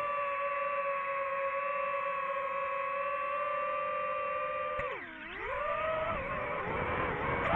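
DJI FPV drone's motors and propellers whining at a steady pitch. About five seconds in, the pitch dips sharply and climbs back as the motors slow and speed up again.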